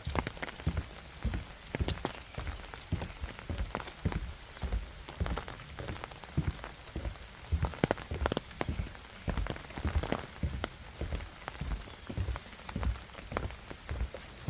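Rain falling steadily, with many irregular sharp drop impacts close by and frequent soft low thuds.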